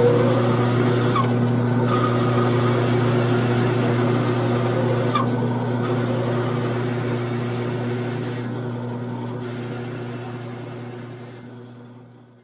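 Grizzly G9972Z metal lathe running with a steady hum while a 21/32-inch twist drill bores into spinning 6061 aluminium. A thin high whine from the cut comes and goes, breaking off briefly three times, and the whole sound fades out near the end.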